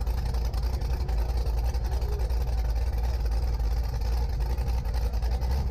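Cammed LS V8 of a Chevy S-10 burnout truck running at low speed with a loud, steady, deep rumble, heard from inside the cab.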